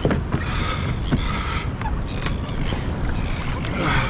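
Water sloshing and splashing around a kayak in rough sea, with steady wind rumble on the microphone and a few small knocks.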